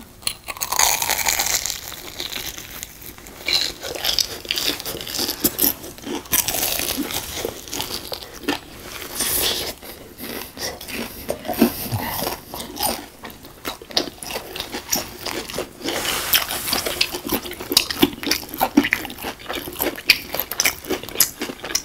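Two people biting into and chewing deep-fried Myungrang Korean hot dogs, close-miked: the crisp fried batter crunches in irregular crackles over wet chewing.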